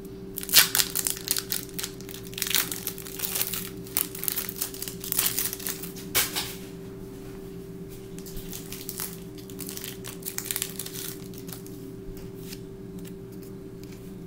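Foil booster-pack wrapper crinkling and tearing as it is opened by hand, busiest in the first six seconds, then softer rustling that dies away.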